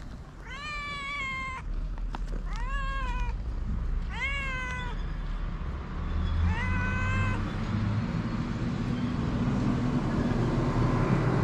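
Stray cat meowing four times, each meow about a second long, rising in pitch at the start and then held. In the second half a low steady noise builds up.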